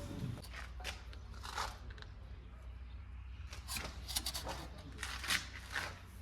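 Backhoe loader's diesel engine running with a low steady hum, under a series of short, irregular scraping and crunching noises of soil and stone being worked, the loudest about four and five seconds in.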